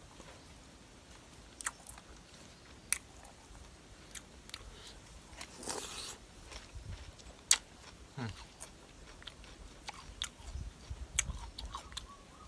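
A person eating close to the microphone: chewing, with scattered sharp crunches and clicks. The loudest click comes about seven and a half seconds in.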